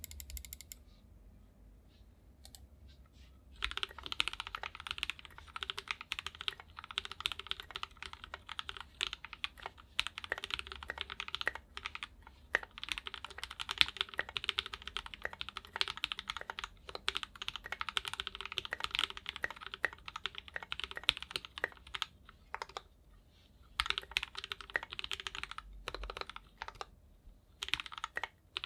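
Typing on a KBDFans 5 Degree mechanical keyboard fitted with Gateron Full Milky Yellow linear switches: a fast, continuous run of keystrokes that starts a few seconds in, with two short pauses near the end.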